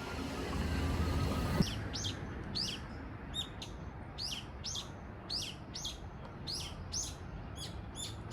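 A bird giving a long run of short, high chirps that sweep downward, about two a second, starting about two seconds in. A low hum underneath stops just before the chirping begins.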